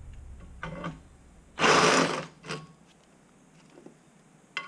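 Corded electric drill reaming out a hole in a steel plate: one loud burst of under a second about a third of the way in as the bit cuts the metal, with shorter, quieter runs just before and after. A few metal clicks come near the end.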